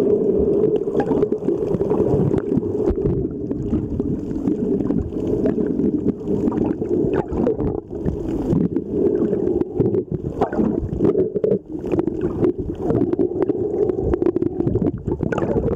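Underwater noise picked up by a camera below the surface: a steady muffled hum with many scattered short clicks and crackles.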